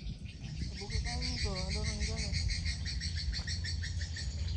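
Insects chirping in a fast, even pulsing trill over a steady low rumble. A brief wavering call in a lower pitch comes about a second in.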